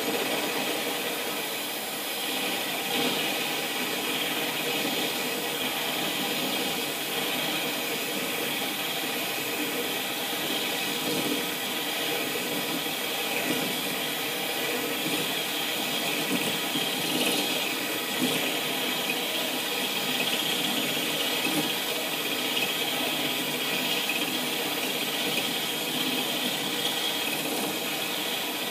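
Power drill running steadily with a 10 mm diamond core bit, grinding dry through window glass, the inner pane of a double-glazed window.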